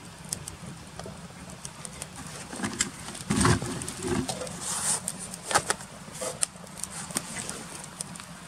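Wood fire crackling with scattered sharp pops under a pan of flatbread. A few low, muffled bumps come about three to four seconds in.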